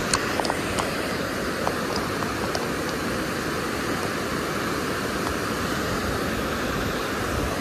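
Steady rushing of river water pouring over a low concrete dam spillway, with a few small clicks in the first couple of seconds.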